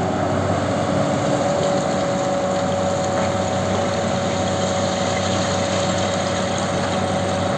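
Komatsu PC450LC-7 excavator's diesel engine running steadily.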